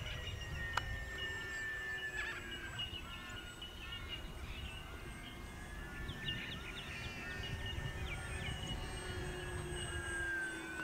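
Radio-controlled twin-motor floatplane flying overhead, its motors giving a steady whine that slides slowly lower in pitch. Birds chatter with short chirping calls, over a low rumble of wind on the microphone.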